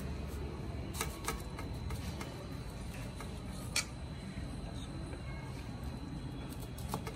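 A few light clicks of a knife blade touching a ceramic plate while slicing a soft steamed dhokla: a small cluster about a second in and a single sharper click near four seconds. A steady low hum runs underneath.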